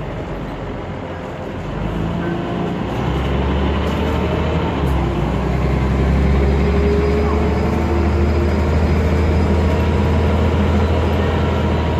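Scania Omnicity bus's rear-mounted nine-litre five-cylinder diesel engine running under way, heard from inside the passenger saloon; it grows louder about two seconds in, then holds a steady low drone.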